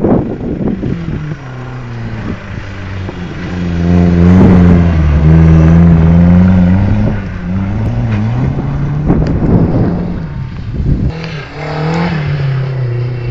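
Car engine revving hard under acceleration, its pitch climbing and dropping back several times. It is loudest for a few seconds around the middle.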